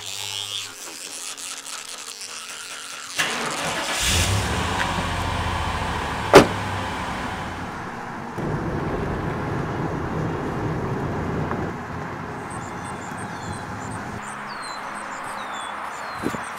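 A car engine starts about three seconds in and runs on steadily, with a sharp click a few seconds later. Near the end, birds chirp in a repeated series of short, high, falling calls.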